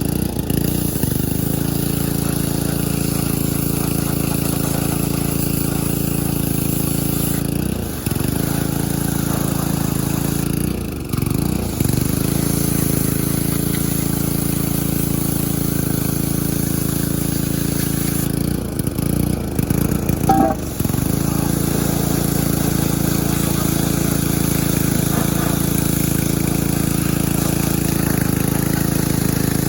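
Small gasoline engine of a pressure washer running steadily. Its pitch dips briefly a few times, around 8, 11 and 19 to 21 seconds in.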